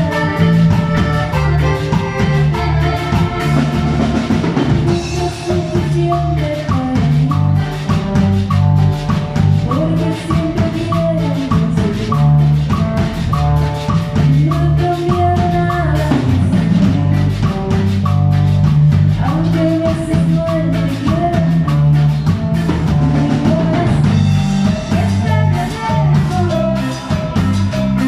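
Instrumental passage of a Latin band song: drum kit and percussion keeping a steady beat under a strong bass line and a bright melodic instrument line, with no singing.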